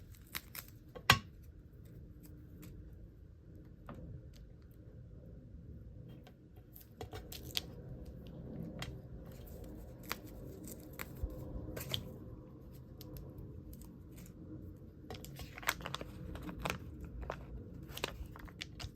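Hands peeling stamp stickers from their backing and pressing them on, handling the plastic stamp sheets: scattered small clicks and tearing rustles, with one sharper click about a second in.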